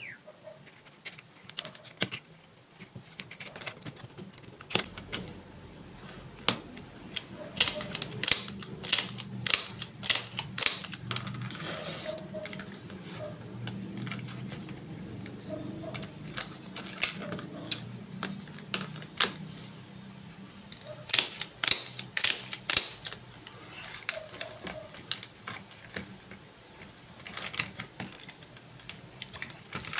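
Wooden popsicle-stick parts clicking and tapping together as they are handled, slid and fitted by hand on a cutting mat. The clicks are sharp and irregular and come in several quick clusters.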